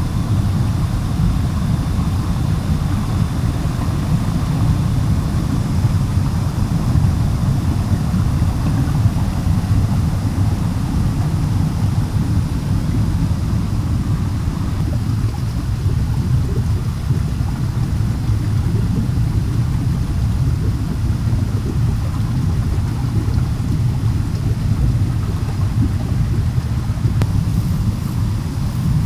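Steady low rumbling rush of a river and waterfall, even and unbroken.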